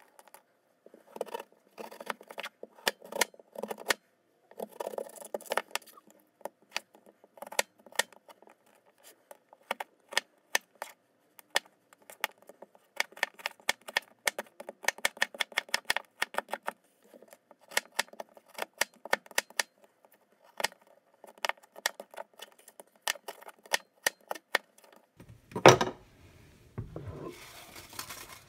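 Kitchen knife slicing a Korean radish into matchsticks on a plastic cutting board: quick, irregular taps of the blade through the radish onto the board, with a louder knock near the end.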